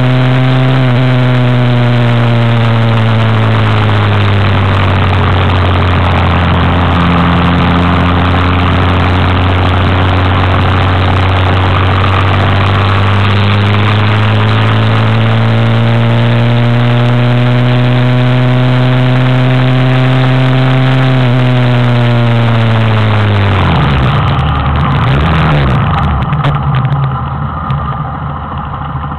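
Roadwin 125 cc motorcycle engine under way, heard from a camera mounted on the bike, over steady wind rush. The engine note dips in the first few seconds, climbs slowly through the middle and then falls away as the bike slows, becoming a quieter, uneven rumble near the end.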